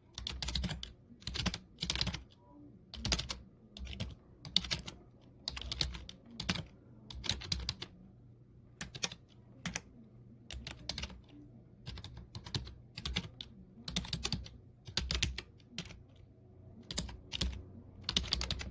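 Computer keyboard being typed on in short bursts of several keystrokes, about one burst a second, with brief pauses between.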